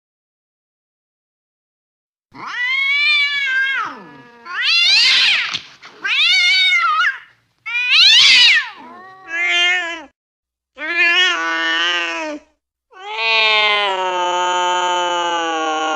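Angry cat yowling: starting about two seconds in, a run of loud drawn-out calls that rise and fall in pitch, the last one held for about three seconds.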